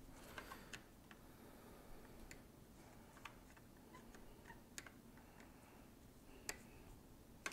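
Faint, scattered clicks and ticks of a screwdriver working the steel tang screw out of a British flintlock musket, metal on metal, with a few sharper ticks spread through.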